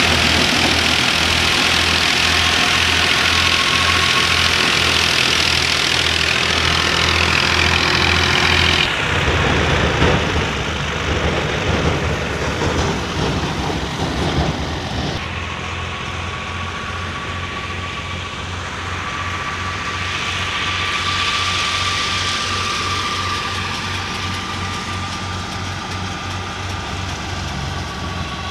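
Diesel tractor engine, a Massey Ferguson 385, running steadily at working speed to drive a wheat thresher through a belt. Its low, even pulsing sits under the rushing hiss of the thresher drum and of grain and chaff being blown out. A steady whine comes in during the second half, and the sound changes abruptly twice where the recording cuts.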